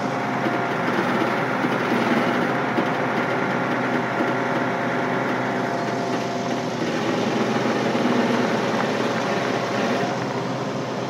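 A motor running steadily with a constant whine.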